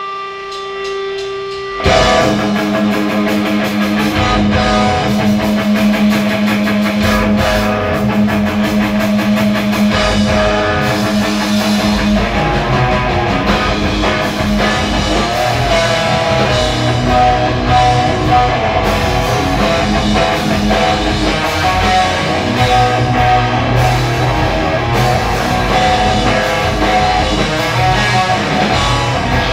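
Dark metal trio playing live: electric guitar, bass and drum kit. A held tone rings for the first two seconds, then the full band comes in abruptly about two seconds in and plays on.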